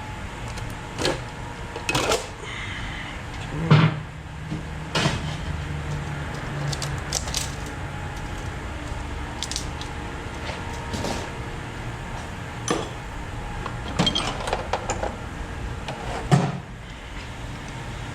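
Metal engine parts and tools being handled while a cylinder head comes off: scattered sharp clinks and knocks, the loudest about four seconds in and near the end.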